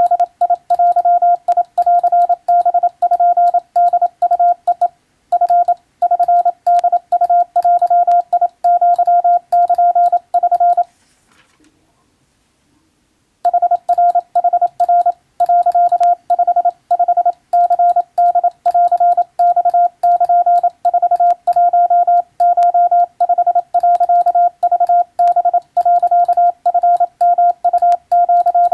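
Morse code (CW) keyed by hand on a telegraph key: a steady beep tone switched on and off in dots and dashes, with faint clicks. The sending stops for about two and a half seconds near the middle, then resumes.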